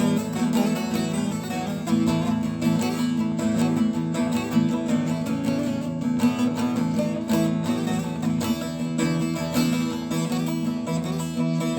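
Background music: a plucked string instrument played in quick repeated notes over a steady low drone.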